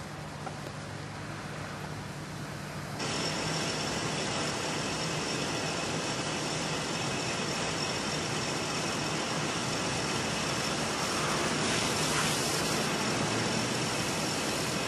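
Steady outdoor street noise with vehicle engines and traffic, no speech; the noise jumps louder suddenly about three seconds in, and a faint steady high whine runs through it after that.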